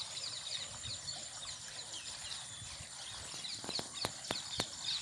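Many small birds chirping together in a busy chorus, over a steady high-pitched tone. A quick run of four or five sharp clicks comes about three and a half seconds in.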